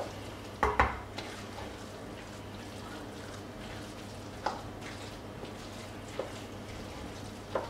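Spoon stirring thick risotto in an enamelled cast-iron casserole, with a few sharp knocks of the spoon against the pot, the loudest about a second in. A steady low hum runs underneath.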